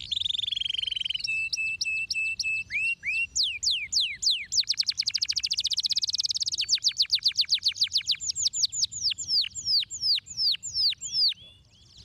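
Domestic canary singing one long, varied song: a buzzy trill, a few repeated short notes, then downward-sweeping whistles that speed up into a fast rattle around the middle and slow again before the song stops near the end.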